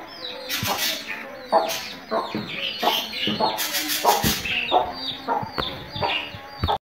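A mother hen clucking repeatedly while her brood of chicks keeps up a stream of high, short, falling peeps.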